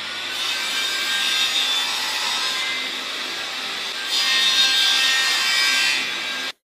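Table saw running and cutting a thin white panel on a crosscut sled, a steady motor hum under a hissing saw noise that grows louder twice. The sound cuts off abruptly near the end.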